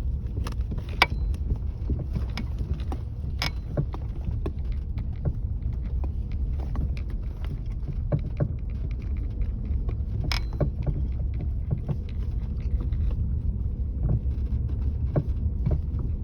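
Irregular sharp knocks from a car's worn anti-roll bar end links (stabilizer links) over a steady low road rumble as the car drives over bumps. The knocks are the sign of faulty links. The loudest knocks come about a second in, about three and a half seconds in and about ten seconds in.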